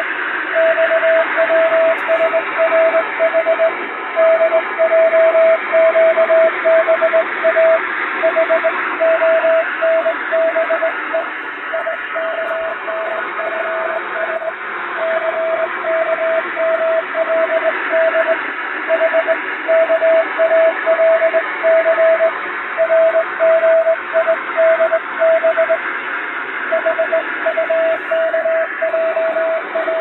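Morse code sent by hand on a straight key: one steady tone keyed on and off in dots and dashes, spelling five-letter code groups. It sounds over a constant shortwave-radio hiss that slowly fades and swells.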